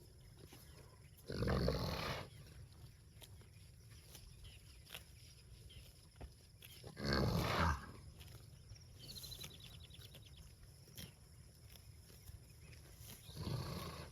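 Cows mooing: three short, loud moos about six seconds apart, the last near the end.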